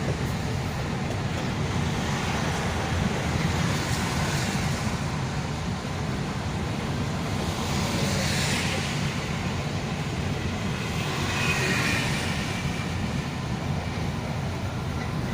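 Steady road and traffic noise from a moving vehicle: a constant low engine and tyre rumble with a hiss on top, swelling slightly a couple of times.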